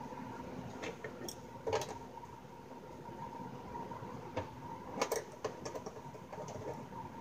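Small clicks and taps of hands working the knobs and front panel of a Yamaha THR10X guitar amp during disassembly, in scattered bursts with the sharpest about two seconds and five seconds in. A faint steady hum runs underneath.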